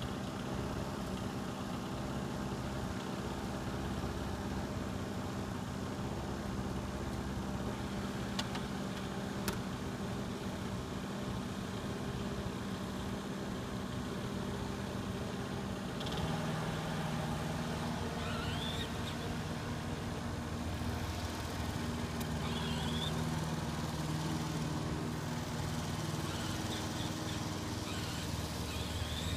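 Gasoline lawn mower engine running steadily, its tone shifting slightly about sixteen seconds in.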